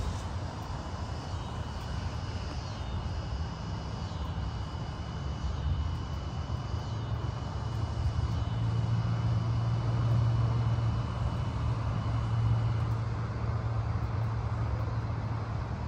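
A distant low rumble swells to its loudest about ten seconds in, then fades away. Over it runs a thin, steady high tone that stops near the end.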